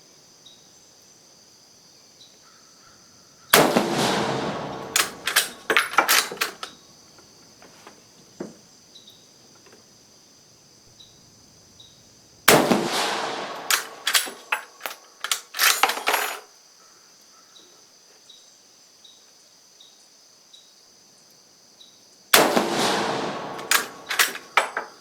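Three rifle shots from a 7.35 mm Carcano M38 bolt-action short rifle, about nine seconds apart, each followed by a quick run of metallic clicks and clacks as the bolt is worked for the next round. Insects buzz steadily in the background.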